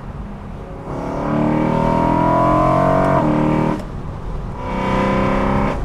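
Tuned BMW E93 M3's S65 4.0 L V8, with an intake plenum delete and custom exhaust, pulling under throttle: induction and exhaust noise rising in pitch for about two seconds, with a brief break about three seconds in, then easing off before a second, shorter pull near the end.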